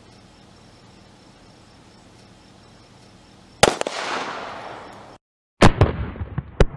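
Handgun shots: one sharp shot about three and a half seconds in with a long fading tail, then two more shots near the end, about a second apart.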